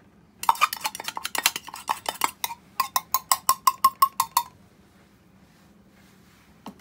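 Zirconia grinding beads clattering out of a grinding cup into a stainless steel mesh sieve: a fast jumble of sharp clicks, then an even run of short ringing clicks, about seven a second, as the cup is shaken out. The clatter stops about four and a half seconds in, leaving a faint low hum.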